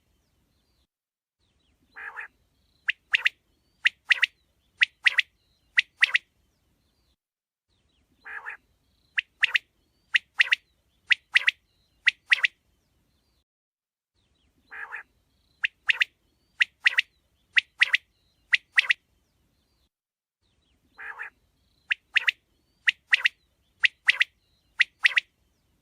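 Male Coturnix quail singing in repeated bouts, about every six seconds. Each bout opens with a low, burred note followed by about four pairs of sharp, high calls at roughly one pair a second.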